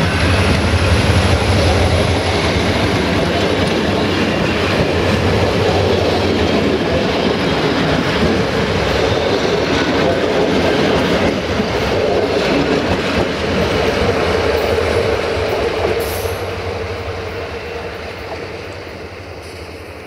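Passenger coaches passing at close range, their wheels rumbling and clattering over the rails. The noise fades steadily over the last few seconds as the end of the train moves away.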